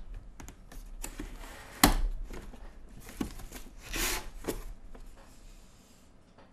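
Cardboard of a beer advent calendar being torn open and rustled as a bottle is taken out, with a sharp knock about two seconds in and a longer rustle around four seconds in.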